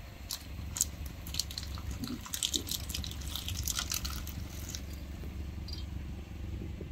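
Car engine idling with a steady low hum, while a run of small crackles and clicks comes from under a slowly rolling tyre as it crushes an object. The crackling is densest in the middle and thins out near the end.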